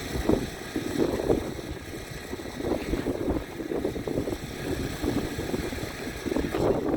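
Wind buffeting the microphone: a low rumbling noise that surges and falls off irregularly, every second or so.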